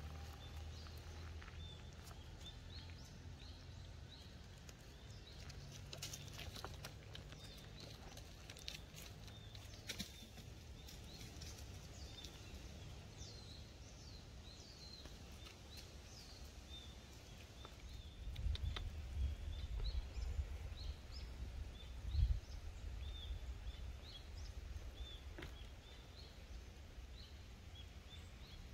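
Small birds chirping over and over in the woods, short high calls repeating all through, over a low rumble that grows louder about two-thirds of the way in. A few sharp clicks near the start.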